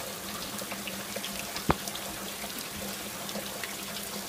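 Heavy rain falling, a steady patter of many small drop ticks, with one sharp knock not quite halfway through.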